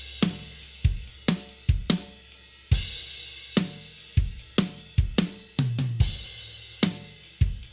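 Acoustic drum kit playing a steady groove, heard dry with no reverb added: kick and snare hits under hi-hat and crash cymbals, with cymbal crashes washing out about three and six seconds in.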